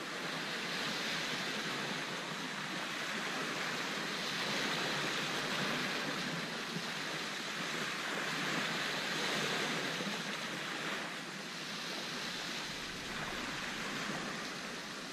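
Small sea waves washing onto a sandy shore: a steady hiss of surf that swells and ebbs slowly.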